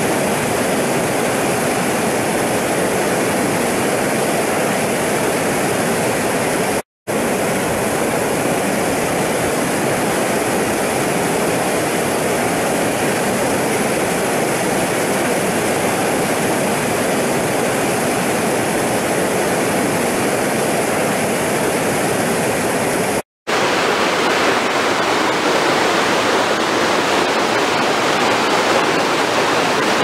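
Steady rushing of churning water pouring over a weir, broken twice by a split-second gap of silence; after the second gap the rushing carries on with a slightly different tone.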